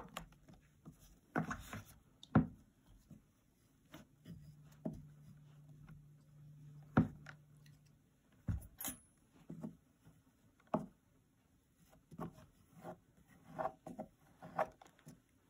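Wire loop sculpting tool scraping and shaving plasticine clay off a dome-shaped model, in scattered short scrapes and taps against the board. A faint low hum runs for a few seconds in the middle.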